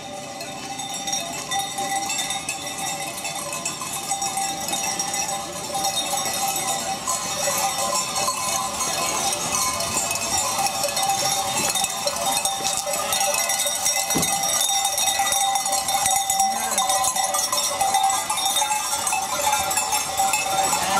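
Many bells worn by a flock of sheep on the move, jangling continuously and growing steadily louder as the flock approaches.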